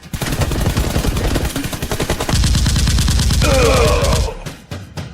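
Rapid automatic gunfire in a continuous burst of many shots a second, joined about two seconds in by a second, heavier stream of fire. A short wavering cry rises over the shooting near the end, and the firing stops about four seconds in.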